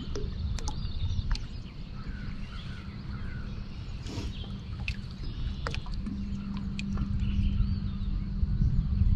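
Wind buffeting the microphone over open water, with faint bird calls, a few sharp clicks and a steady low hum that grows louder about six seconds in.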